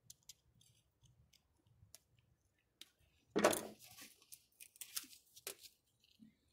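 Small metal tool clicking and scraping against the tip of a Subaru STI side-feed fuel injector, prying at the ground-down cap that has just come loose. It is mostly light scattered clicks, with one louder scrape about three and a half seconds in and a few sharper ones near five seconds.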